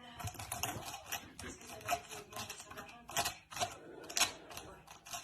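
Rapid, irregular clicking and tapping, like keys being struck, with a few louder clicks about two, three and four seconds in.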